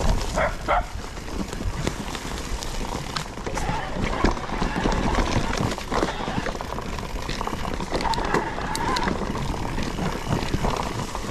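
YT Decoy electric mountain bike ridden fast down a dirt forest trail: tyres rolling and bumping over the ground and roots, with many short knocks and rattles from the bike.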